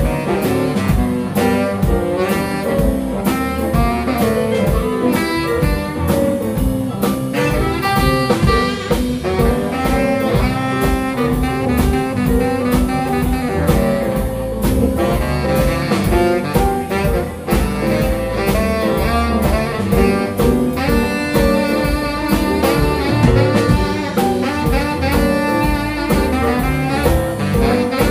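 Live blues band playing an instrumental break with a steady drum beat: saxophone lead over piano, upright bass and drum kit.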